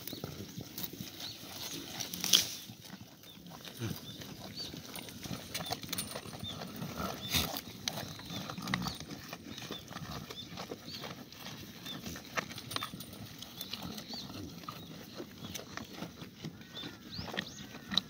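Black goats tearing at and chewing fresh weeds pushed through a wire fence: irregular crunching and crackling of stalks over a low rustle, with a sharp knock about two seconds in.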